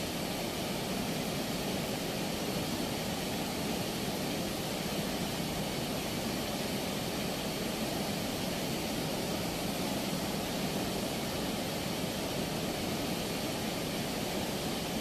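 Turbulent river water rushing through the open sluice gates of a movable weir, a steady, even rush of churning water.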